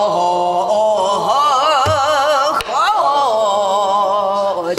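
A woman singing pansori, drawing out a long held line with a wide wavering vibrato. A buk barrel drum accompanies her: a low stroke about two seconds in, then a sharp stick stroke just after.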